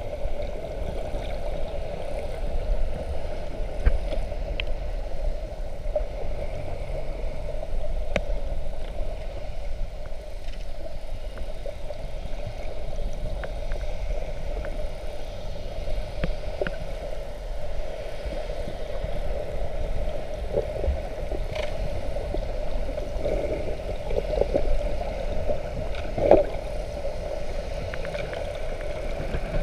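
Muffled underwater sound picked up by a camera just below the surface: a steady low rumble with a constant hum, scattered faint clicks, and the churning of swimmers kicking at the surface.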